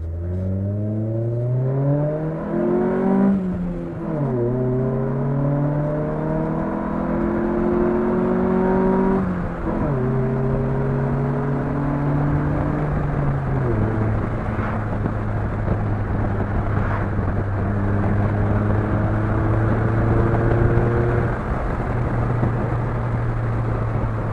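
Chevrolet Vectra 2.2 8-valve four-cylinder with a sports exhaust (no catalytic converter, straight pipe, turbo muffler) accelerating hard. Its revs climb steeply, fall with an upshift about four seconds in, climb again, fall with a second upshift about ten seconds in, then settle into steady high-speed cruising from about fourteen seconds.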